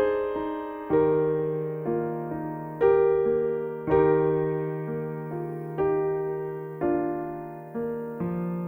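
Keyboard playing slow piano chords, a new chord struck every half second to a second and each one fading, over a low note held through most of the passage.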